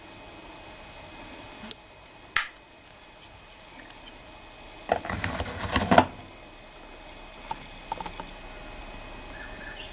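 Clicks and clatter of a Geiger counter's metal probe being handled and pushed into its holder on the set: two sharp clicks about two seconds in, a burst of rattling lasting about a second around five seconds in, then a few light clicks.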